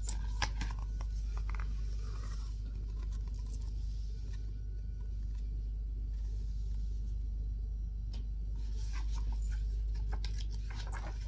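Faint rustling and light clicks of paper as a picture book's pages are handled and turned, mainly near the start and again near the end, over a steady low hum.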